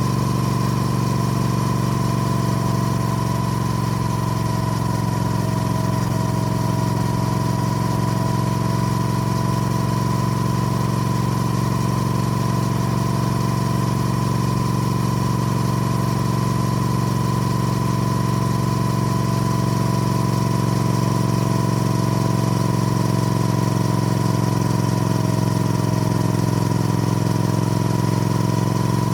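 Triumph Speed Twin parallel-twin engine running at a steady, unchanging engine speed, with no revving.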